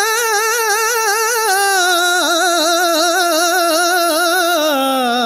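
A solo singing voice holding one long, wavering ornamented note of a Tamil devotional song to Murugan, the pitch sliding gradually downward near the end.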